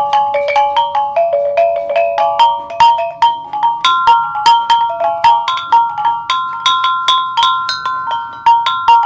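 Kulintang music: a row of small tuned gongs struck in a quick running melody, several ringing strokes a second.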